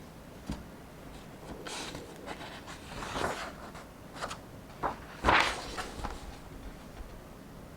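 Book pages being turned and handled: paper rustling and swishing, with a few light taps, the loudest page flip about five seconds in.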